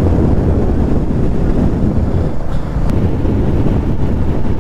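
Wind buffeting a riding microphone as a steady low rumble, over the engine of a Royal Enfield motorcycle being ridden along.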